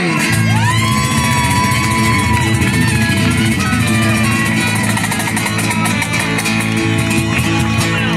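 A live acoustic band playing: a soprano saxophone carries the melody, swooping up into a long held note about a second in, over acoustic guitar, electric bass and a cajón keeping a steady beat.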